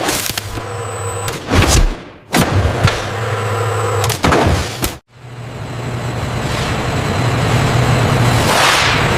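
Low, steady machinery hum with several sharp knocks and clatters, cut into short segments that stop abruptly.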